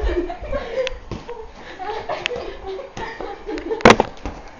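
Onlookers talking and laughing, with one loud, sharp smack almost four seconds in.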